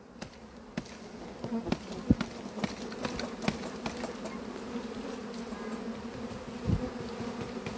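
Honeybee swarm buzzing around a tree branch and a nucleus hive box as it is coaxed into the box, a steady hum that grows louder about a second in. Scattered short ticks and knocks sound over it.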